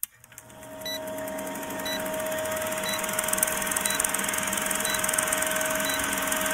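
Film-leader countdown sound effect: a steady film-projector clatter and hum, with a short high blip about once a second as the numbers count down. It fades in over the first two seconds.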